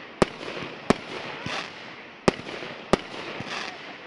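Fireworks going off: five sharp bangs at uneven intervals, each followed by a crackling hiss that swells and fades.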